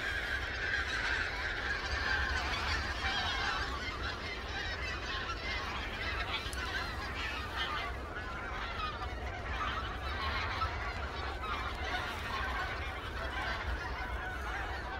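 A large flock of wild geese honking in flight overhead: many overlapping calls forming a continuous clamour.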